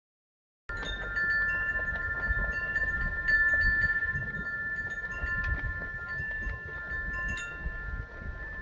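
Wind chimes ringing in a breeze, starting just under a second in: several long, steady overlapping tones with short higher pings now and then, over gusts of wind rumbling on the microphone.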